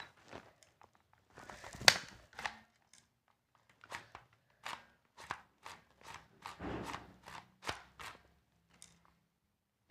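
Sharp clicks and knocks of a JP-5 gun being handled, about a dozen at uneven intervals, the loudest one just under two seconds in.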